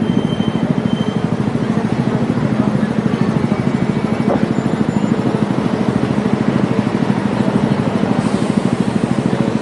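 Steady traffic noise and a running bus engine, heard from the open top deck of a moving double-decker bus.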